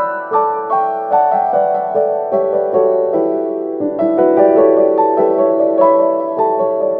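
Background music: piano-like keyboard notes played at a gentle, steady pace.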